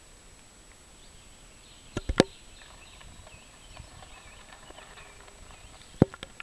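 Sharp knocks, three in quick succession about two seconds in and one more near the end, over faint, wavering high chirps.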